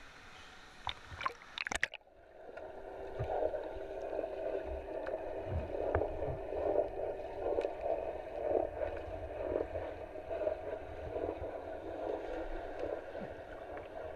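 Pool water splashing at the surface, then from about two seconds in the muffled, steady churning and gurgling of water heard underwater through an action-camera housing, with the treble cut off.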